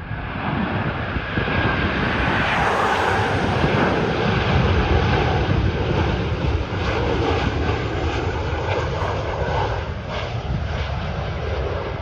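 Jet engines of a Boeing 737-800 airliner on final approach, a steady loud rush with a faint whine. It grows louder over the first few seconds as the plane nears, then eases slightly.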